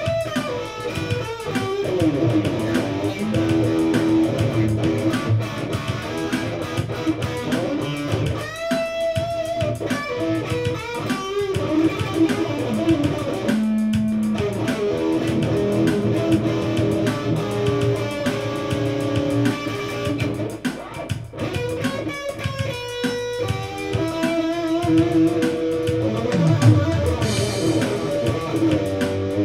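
Electric guitar played through an amplifier in a solo jam, on the neck pickup for a dark but defined tone: melodic single-note lines with sustained and bent notes.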